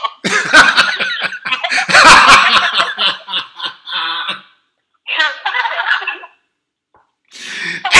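People laughing hard in loud, broken bursts, then a short silence and a second, briefer burst of laughter.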